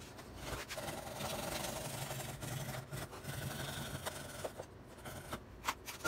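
Backsaw cutting across a wooden board in a wooden miter box: a steady rasping of saw strokes that dies away shortly before the end, followed by a few light knocks.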